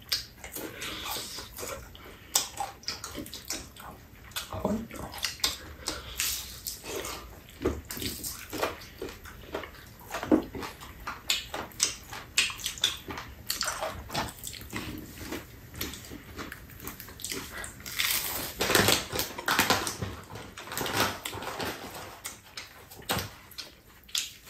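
Two people chewing and smacking their lips while eating fried chicken with their hands: an irregular run of small mouth clicks and smacks, louder for a moment about three-quarters of the way through.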